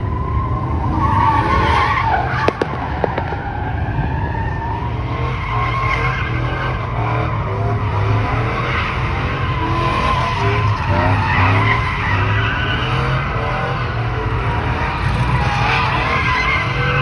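Truck engine running hard with tyres squealing and skidding in a burnout. A couple of sharp clicks come about two and a half seconds in.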